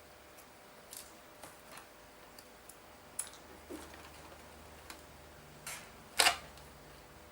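Scattered light clicks and taps of small model parts being handled and set against the RC truck body, with a louder knock about six seconds in.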